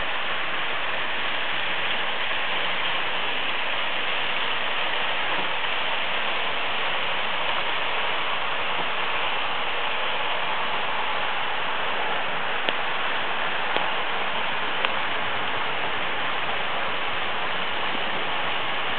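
Several H0 scale electric model trains running on the layout: a steady whirring rumble of small motors and wheels rolling on the track, with a few faint clicks about two-thirds of the way in.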